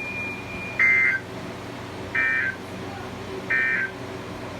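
Three short buzzy digital bursts about a second and a half apart, the SAME end-of-message data code closing a weather radio warning, after a steady high tone that stops about a second in; a steady low hum of the broadcast runs underneath.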